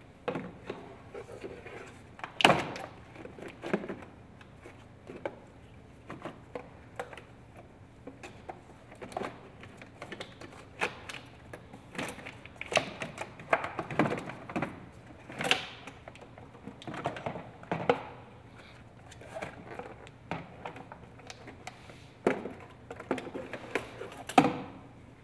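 Hard plastic air intake parts being handled and unclipped in an engine bay: scattered clicks, knocks and rattles. The sharpest knocks come about two and a half seconds in and near the end.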